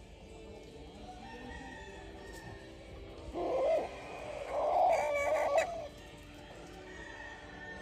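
An Ayam Cemani rooster crows once, about three seconds in: a short opening note, then a longer drawn-out one.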